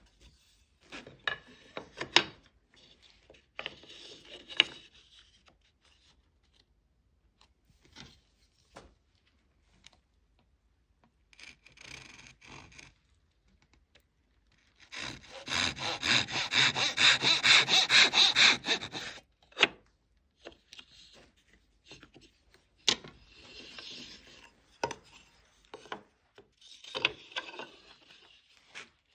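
Japanese backed pull saw cutting into a wooden muntin held in a jig: for about four seconds in the middle, quick rasping strokes, about three a second. Before and after it, short rubs and light knocks as the wood pieces are handled and set in the jig.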